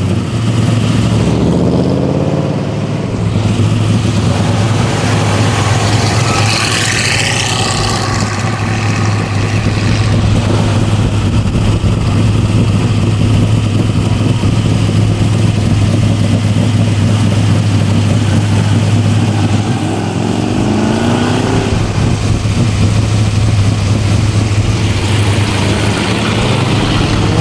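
V8 engine of a lowered square-body Chevrolet pickup idling steadily, revved briefly with a rising note about two seconds in and again about twenty seconds in.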